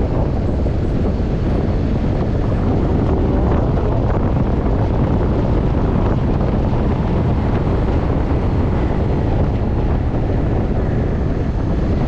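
Steady rush of wind on the microphone mixed with motorcycle engine and road noise while riding at about 35 to 50 km/h.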